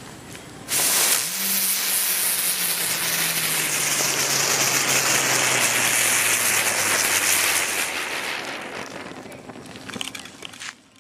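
A bambaram (spinner) firecracker catches with a sudden hiss about a second in and burns with a loud, steady hiss of sparks for about seven seconds. Under the hiss a low hum falls slowly in pitch. Then the hiss tapers off and dies out near the end.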